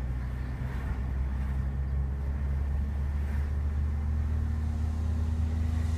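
Steady low drone of a moving vehicle's engine and road noise, heard from inside the cabin.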